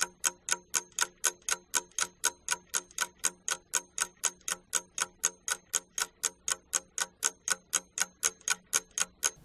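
Clock ticking sound effect, about four even ticks a second, stopping near the end.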